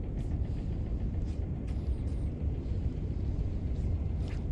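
Steady low outdoor rumble, with a few faint brief high chirps or clicks scattered through it.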